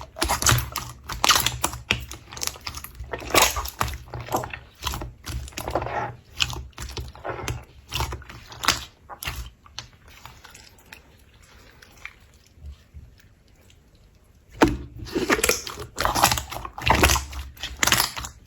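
Slime being squeezed and poked by hand, giving a run of small wet clicks and pops. It thins out for a few seconds in the middle and picks up again near the end.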